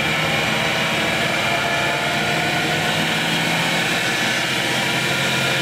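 A belt-driven 10-inch cast-iron pedestal grinder with a 1 hp three-phase motor fed through a VFD, running up to speed with a steady hum. The motor is overspeeding past its rated 2850 RPM to about 3,300 RPM and still creeping slightly higher.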